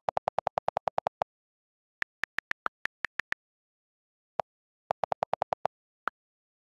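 iPad on-screen keyboard click sounds: a fast run of lower-pitched delete-key clicks as text is erased, then about nine higher letter-key clicks as a short phrase is typed, then another quick run of delete clicks. There are single clicks near the end.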